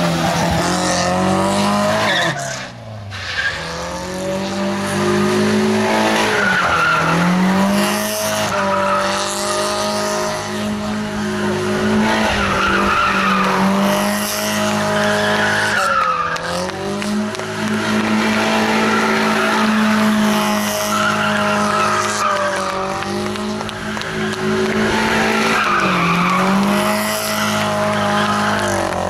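Small hatchback's engine revving hard and held high while its tyres squeal and spin, the pitch dropping briefly and climbing again several times as the car spins donuts.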